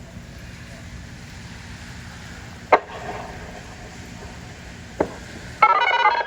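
Steady hiss and low rumble of rain and wind on the microphone, with two sharp taps. Near the end a Whelen WPS-2910 electronic outdoor warning siren starts loudly on a steady, many-toned alert signal.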